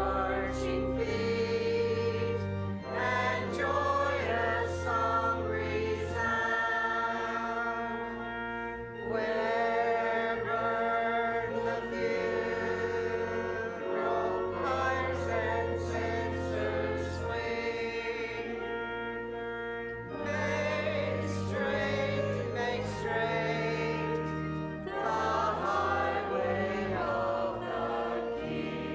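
Choir singing a sacred piece in several voices over sustained instrumental accompaniment, in phrases with short breaths between them.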